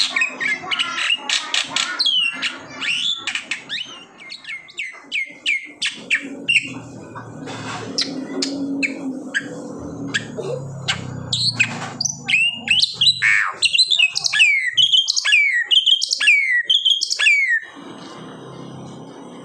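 Black-winged starling singing busily: quick sharp chips and clicks, then a run of whistled notes sliding downward, about two a second. The song stops near the end.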